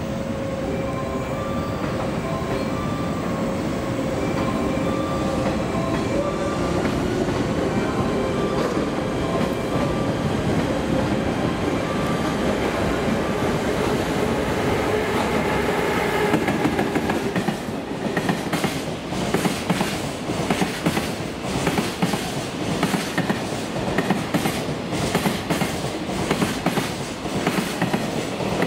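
JR Freight EF210 electric locomotive and its container wagons running through. First there is a steady rumble with a faint pitched whine, then from about two-thirds of the way in the wagon wheels clack over the rail joints in a regular clickety-clack.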